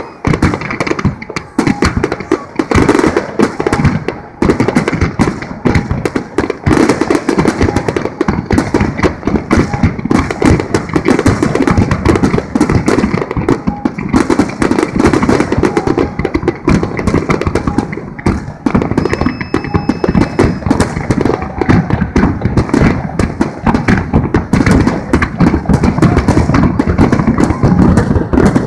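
Aerial fireworks in a dense, continuous barrage: many shells bursting and crackling in rapid, overlapping bangs with hardly a pause.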